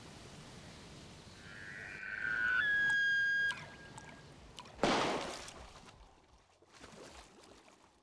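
A high, steady whistled tone about a second long, then a sudden splash of water about two seconds later, followed by fainter sloshing.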